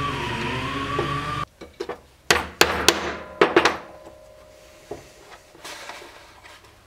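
A steady droning tone that wavers in pitch stops abruptly about a second and a half in. It is followed by a run of irregular sharp knocks and taps, the loudest in the middle, as the leather-covered scabbard is handled on the wooden workbench.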